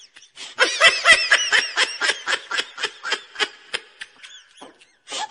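High-pitched giggling laughter in quick bursts, about five a second, loudest at first and fading away toward the end.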